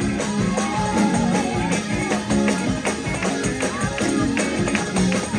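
Fast, driving church praise-break music, with a rapid beat of drums and tambourine.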